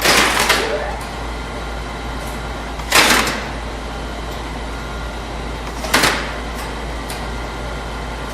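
Three swishing whooshes about three seconds apart, each swelling and fading within about half a second, over a steady low hum.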